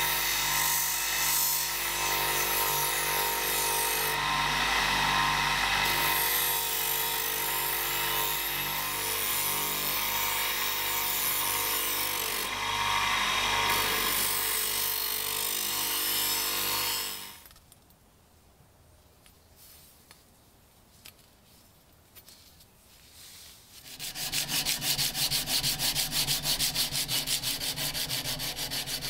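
A bench motor runs an abrasive wheel while a rusty knife blade is pressed against it, giving a steady hum with a grinding hiss as the rust is taken off. The wheel stops about two-thirds of the way through, leaving a few seconds of near quiet. Then an abrasive strip is rubbed back and forth along the steel blade in quick, even strokes.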